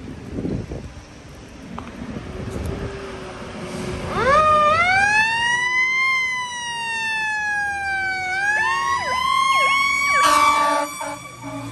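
Fire engine approaching on a wet road, tyres hissing. About four seconds in its siren starts with a rising wail, falls slowly and rises again, then gives a few short chirps. A brief loud horn blast comes about ten seconds in.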